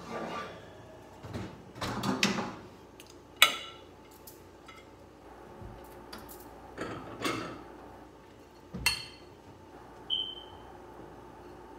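Kitchen handling noises: dishes being moved and a wooden cabinet door opened, with several sharp clacks and scrapes. A short ringing clink of a glass plate sounds near the end.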